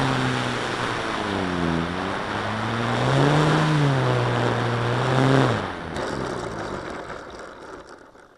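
Electric motor and propeller of a radio-controlled warbird model, heard from the aircraft itself as it flies. It hums steadily, dips and rises in pitch twice with the throttle, and cuts off about five and a half seconds in. A fading rush and scuffing follows as the model glides down and settles into the grass.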